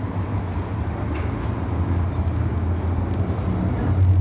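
Steady background road traffic: a continuous low rumble of passing vehicles with a noisy hiss over it, rising slightly near the end.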